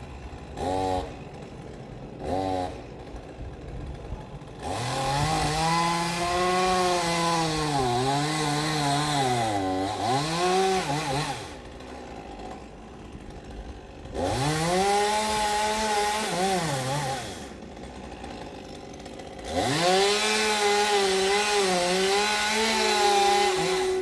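Two-stroke chainsaw: two quick throttle blips, then three long runs at full throttle, each several seconds long, with the engine pitch sagging and recovering as the chain works through the wood. Between the runs it drops back to idle.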